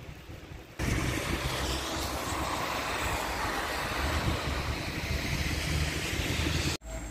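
Wind buffeting the microphone outdoors: a loud, steady rushing with low rumbling, starting abruptly about a second in and cutting off abruptly near the end.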